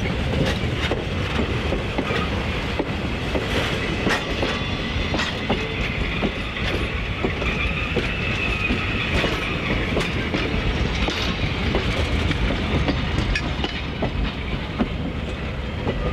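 Vintage steel passenger coaches rolling past close by: a steady rumble with the wheels clicking over rail joints. A faint high tone rises over it about halfway through.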